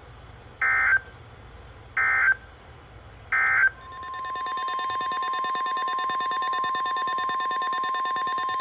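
EAS SAME header: three short bursts of digital data tones, about a second and a half apart. They are followed by a long, loud alert tone that pulses rapidly, about eight pulses a second, which is the attention signal that opens the next weather warning.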